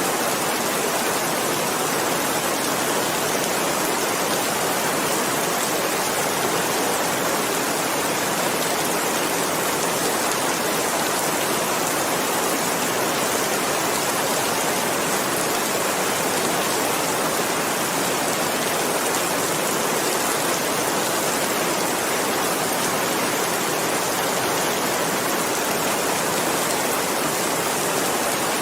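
Steady, continuous rain: an even hiss of falling drops with no individual drips standing out.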